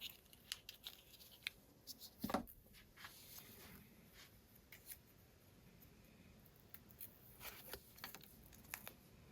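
Near silence broken by faint, scattered clicks and rustles of small hand-handling noises, one a little louder about two seconds in.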